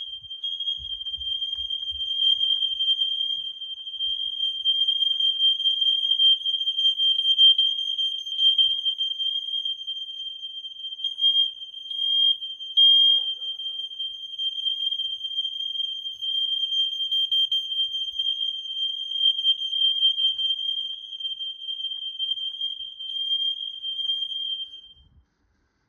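Smoke alarm sounding a continuous high-pitched tone, set off by aerosol smoke-test spray, which shows the alarm responds to smoke; it cuts off about 25 seconds in.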